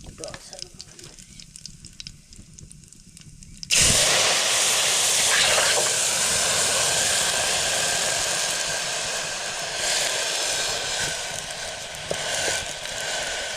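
Frying in hot oil: a faint sizzle at first, then a loud sizzle starts suddenly about four seconds in, holds steady and slowly dies down, as when food is tipped into a hot pan.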